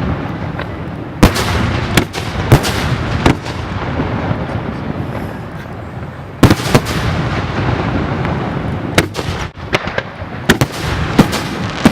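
Aerial fireworks bursting in a rapid series of sharp bangs, about a dozen in clusters, over a continuous rumble and hiss from the show.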